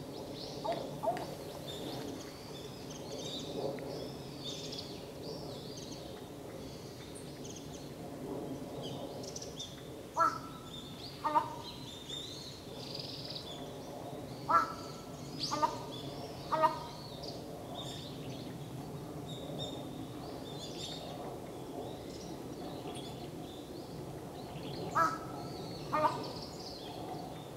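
Large-billed crow (jungle crow) giving its unusual call: about nine short calls in loose groups of two or three, a few seconds apart. Small birds chirp faintly throughout.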